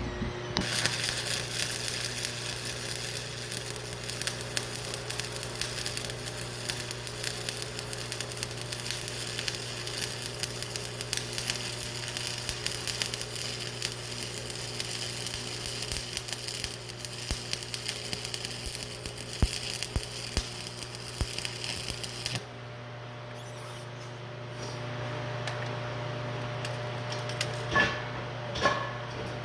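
Electric arc welding a bead on a steel loader arm: the arc's steady crackling sizzle for about twenty-two seconds, then it cuts off suddenly. After that a steady hum remains, with two sharp knocks near the end.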